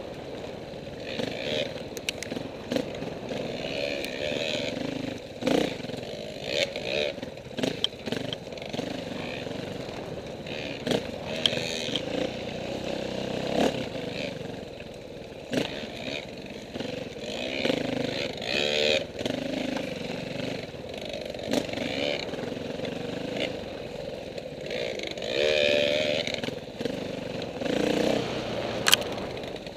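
KTM 450 dirt bike's four-stroke single-cylinder engine being ridden, its revs rising and falling again and again, with sharp knocks and clatter now and then.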